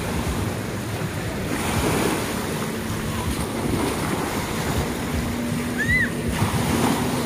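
Small waves breaking and washing up the sand at the water's edge, with wind buffeting the microphone.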